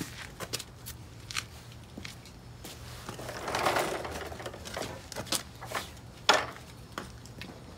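Scattered clicks and knocks of hands and parts moving under a pickup's front end, with a brief rustle a little past three seconds and one sharp knock a little past six seconds.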